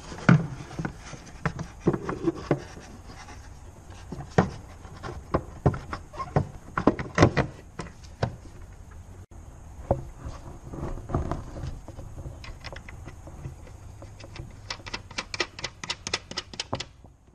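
Peugeot 207 plastic tail-light unit being handled and pushed into place against the car body: irregular knocks, taps and rubbing, with a quick run of clicks near the end.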